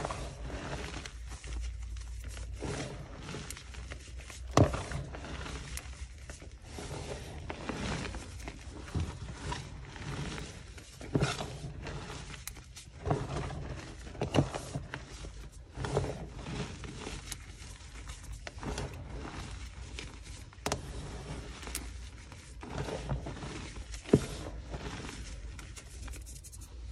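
Fingers digging into and squeezing a heap of crushed yellow gym chalk: soft, dry crunching and crumbling of the powder. Now and then there is a sharper crunch as a firmer clump breaks.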